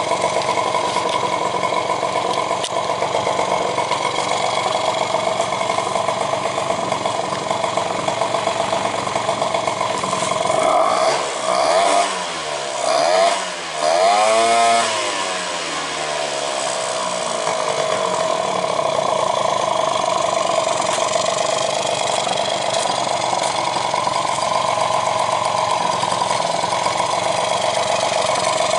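Honda Tact AF24 scooter's small two-stroke engine running steadily, with the loud intake noise of its newly fitted aftermarket air cleaner. Around the middle, the revs rise and fall several times before it settles back to a steady note.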